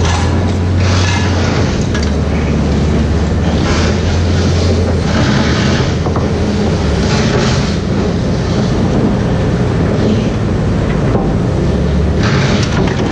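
Kobelco crawler crane's diesel engine running steadily under load as its winch hoists, swings and lowers a hammer grab for pile excavation, the engine note shifting a couple of times. Short rushing bursts of noise come every second or two over the drone.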